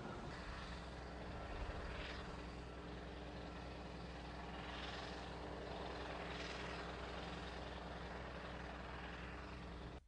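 Drilling rig machinery running: a steady low engine drone with a constant hum, and a few brief higher hissing swells on top.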